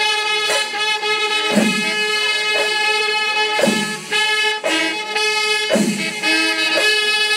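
Music: a held, reedy wind-instrument tone carries on unbroken over a deep drum stroke that falls about every two seconds.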